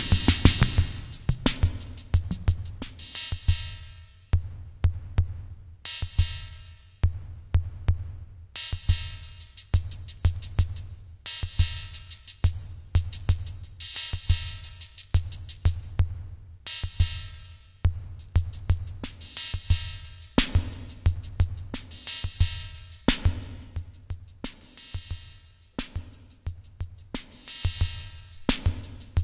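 Sound Master Stix ST-305 analog drum machine playing a programmed rhythm pattern. Low kick-drum pulses and fast hi-hat ticks run under a bright, noisy cymbal-like hit that comes back every few seconds.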